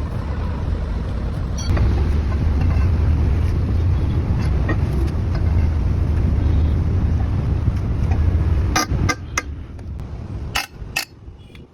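Steady low rumble of a vehicle or nearby road traffic. Several sharp clicks or knocks come near the end, and then the rumble falls away.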